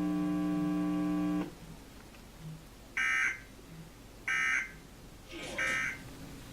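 A steady buzzing tone that cuts off about a second and a half in, followed by the Emergency Alert System end-of-message signal: three short, identical digital data bursts about a second and a quarter apart, marking the close of the required monthly test.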